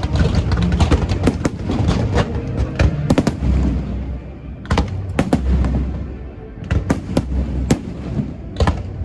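Aerial fireworks bursting: a rapid run of sharp cracks and pops, several a second, over low booms and rumble.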